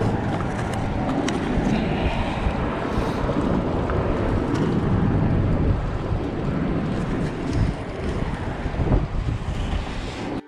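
Wind buffeting the microphone over the wash of choppy open water.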